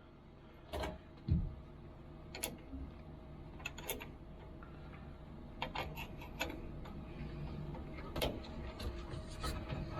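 Scattered light metallic clicks and taps of a hand wrench or ratchet on a long extension loosening the negative battery terminal nut, the strokes coming at irregular intervals with a small cluster about six seconds in.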